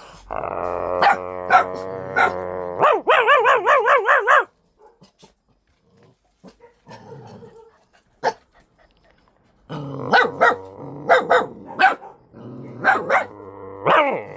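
A person imitating a dog: growling with short barks, then a wavering howl. After a few seconds' pause come more growls and barks.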